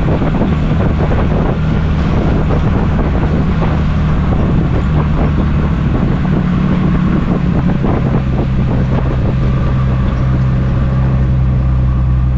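Jeep driving on a rough off-road trail: steady engine drone with rattles and knocks from the bumpy ground. About eight seconds in, the knocking eases and the engine note drops a little and runs steadier.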